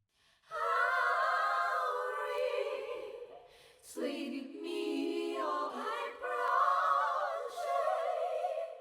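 Wordless choir-like voices singing long held, wavering notes in two phrases. The second phrase begins lower and climbs.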